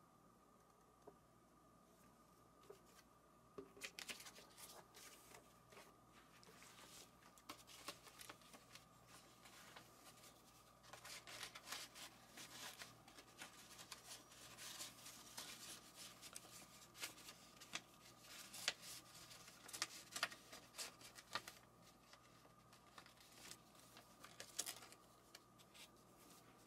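Faint rustling and crinkling of packaging being handled, with many scattered small clicks and taps, starting a few seconds in and getting busier about halfway through.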